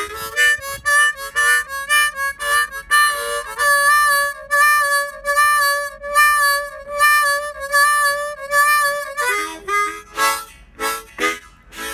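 Blues harmonica played solo in a chordal style: short rhythmic chords, then from about three seconds in a held chord pulsed over and over, and short breathy blasts near the end.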